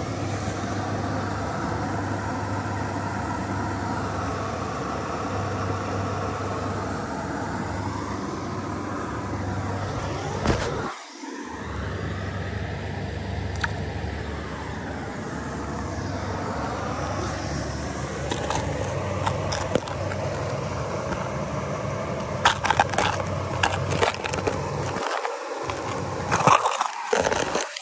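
Creek water rushing steadily over a small waterfall, heard close. Near the end come a series of sharp clicks and knocks as the camera is handled and set down on the rock.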